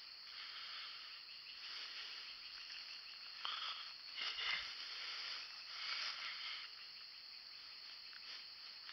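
Steady high chorus of insects, with a few rustling footsteps in dry leaf litter near the middle.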